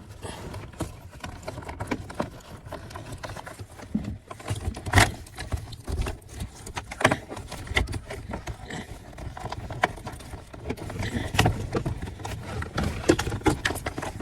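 Irregular clicks, taps and knocks of plastic trim and wiring connectors being handled, as two wiring harnesses for the console switches are fed through their hole in the center console.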